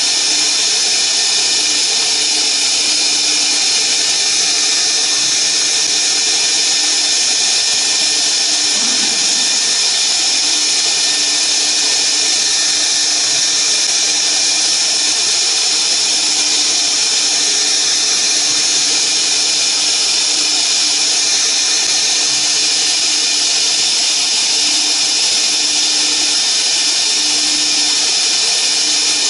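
CNC router spindle running at high speed with a steady high-pitched whine while a pointed engraving bit cuts letters into a board. A lower hum comes and goes underneath.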